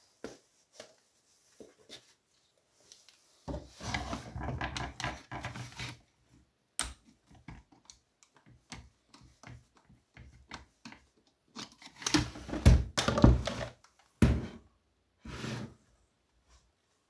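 Screwdriver and hands working on a Partner 410 chainsaw's plastic housing and air-filter area as the saw is taken apart to reach the carburetor: irregular clicks, scrapes and knocks, with a louder spell of rattling about three and a half seconds in and another about twelve seconds in.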